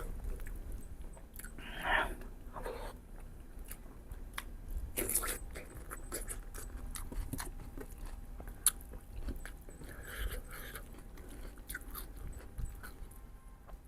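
Close-up eating sounds: biting into and chewing mutton ribs, with many short wet mouth clicks and smacks and a few louder bites.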